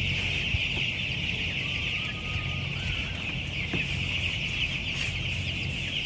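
A large flock of 15-day-old broiler chicks peeping all at once, a dense, steady high chatter of countless overlapping calls. Under it runs the steady low hum of the poultry house's ventilation fans.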